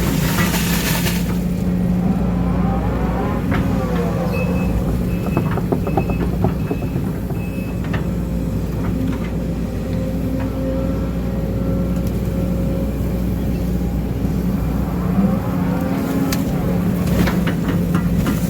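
Case CX210D excavator's diesel engine running steadily under digging load, its note dipping and rising a couple of times as the hydraulics work. Scattered knocks come from the bucket and a few short high beeps sound about five seconds in.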